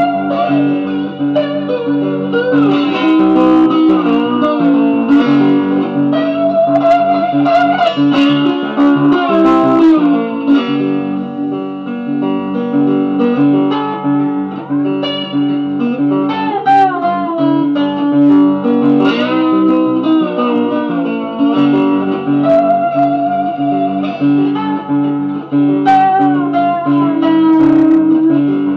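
Electric guitar played solo-style: held lead notes that bend and waver with vibrato over a steady, pulsing low part.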